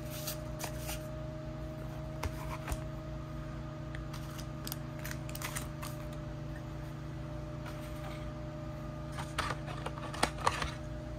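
Hands handling haul merchandise and its packaging: scattered light clicks and rustles, with a busier cluster about nine to ten seconds in, over a steady low hum.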